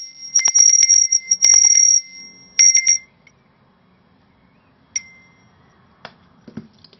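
A small 5 cm metal hand bell shaken so its hanging clapper strikes it many times in quick succession for about three seconds, ringing two steady high tones. After a short pause there is one more single strike about five seconds in, left to ring out.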